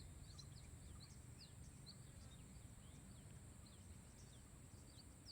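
Near silence: faint outdoor quiet with many short, high, falling bird chirps scattered throughout.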